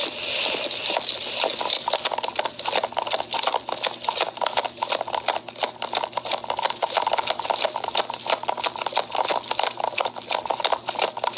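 Quick footsteps crunching in snow, several a second in an even rhythm, picked up close by a police body-worn camera.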